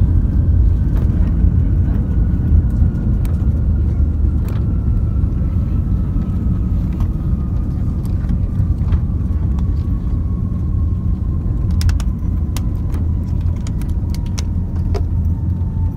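Cabin noise of an Airbus A340-300 rolling out on the runway just after landing, spoilers deployed: a loud steady low rumble with a thin engine whine that slowly falls in pitch as the aircraft slows. Scattered light clicks and rattles, several together about twelve seconds in.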